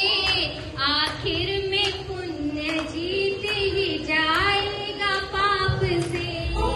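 A woman sings a Teej folk song into a microphone, one melodic voice line held and bending across phrases.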